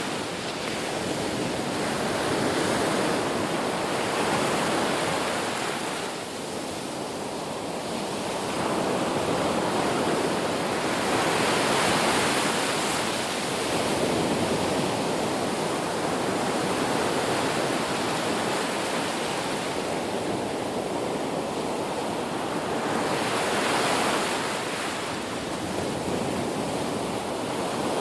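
Ocean surf: waves breaking and washing in as a continuous rushing hiss that swells and fades every several seconds.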